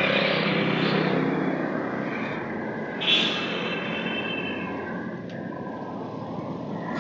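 Car engine running while the steering wheel is turned back and forth, checking a newly fitted power-steering belt that had snapped. A brief high squeal about three seconds in.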